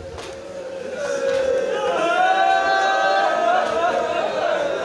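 Mourning wail: a man's voice crying out in grief in long, wavering, drawn-out held tones. It is fainter at first and swells about a second in.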